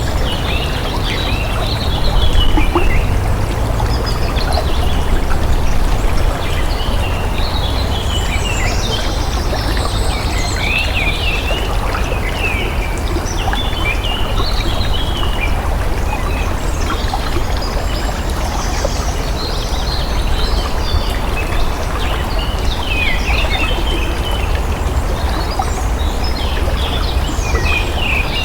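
Water flowing steadily, with many birds chirping in short, quick calls over it.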